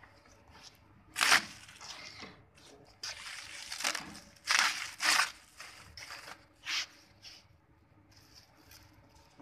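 Clear plastic wrapping film rustling and crinkling as it is handled, in several bursts: a sharp one about a second in, a longer stretch in the middle and a short one near the end.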